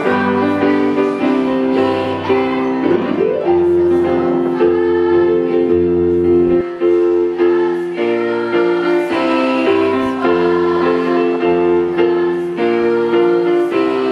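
Girls' school choir singing together over an instrumental accompaniment of held chords and a bass line that change every second or so.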